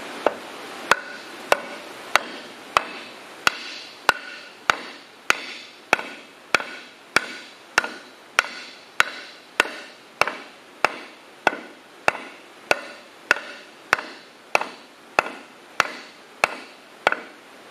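Steady hammer blows, about one every 0.6 seconds, on the end of a wooden board held against a cylinder liner, driving the liner down into a 1967 John Deere 4020 six-cylinder engine block. Each blow is a sharp knock with a short ring after it.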